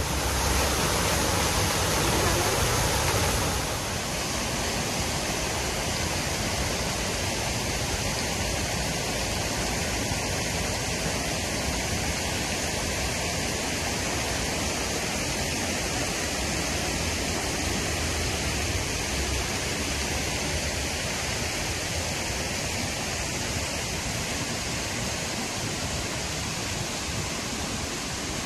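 Steady rush of fountain jets spraying and splashing into their basins. It is louder for the first few seconds, then settles to a slightly lower, even level.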